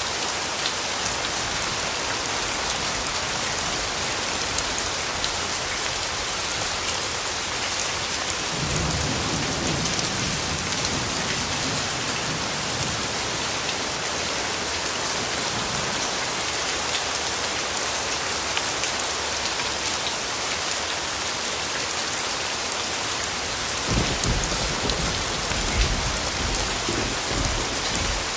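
Steady rain falling, with scattered sharp drop taps. Low thunder rumbles come in about nine seconds in and again about four seconds before the end.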